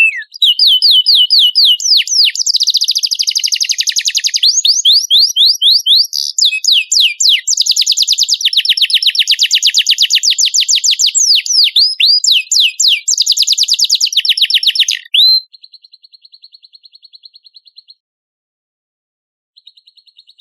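Songbird singing a long run of fast, high trills and rapid repeated whistled notes for about fifteen seconds, then stopping abruptly. A much fainter, quick high trill follows, with a short gap before it resumes near the end.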